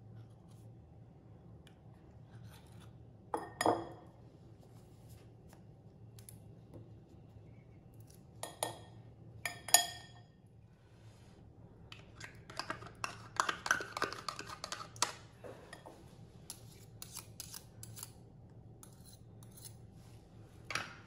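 A metal spoon clinking and scraping against a tin and a glass bowl as caramel is scooped out: a few sharp clinks with a short ring, then a busier run of scraping and clicking in the middle. A wire whisk knocks against the glass bowl near the end.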